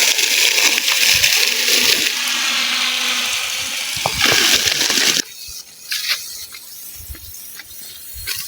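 Rain gun irrigation sprinkler spraying, a loud steady rush of water jet and falling spray that drops away abruptly about five seconds in, leaving a much quieter stretch with a few faint clicks.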